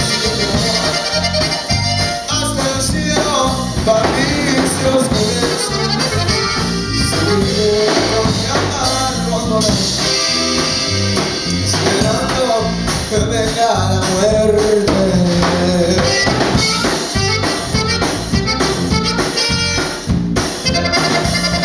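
Live Tejano band playing an instrumental break, with accordion carrying the melody over a steady beat.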